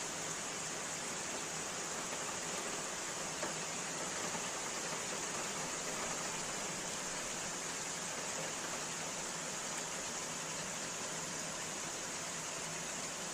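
Steady rain, an even hiss without let-up and with no single drops or thunder standing out.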